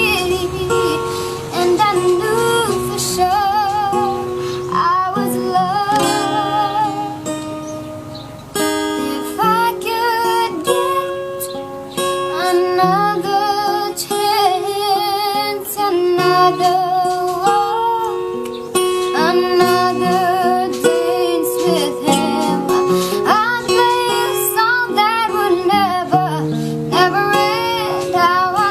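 A child singing a melody with strong vibrato, accompanied by a plucked string instrument such as a ukulele or guitar.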